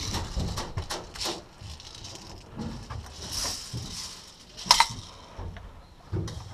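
Gear and feet rattling, scuffing and clicking against the plywood walls and concrete floor of a bunker as a player shifts position, with one sharp loud crack about three-quarters of the way through.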